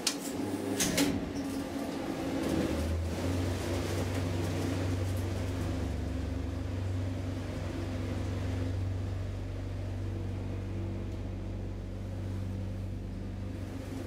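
Two sharp clicks as a floor button is pressed in a KONE traction elevator car. About two and a half seconds in, the lift's machinery starts and hums steadily as the car travels.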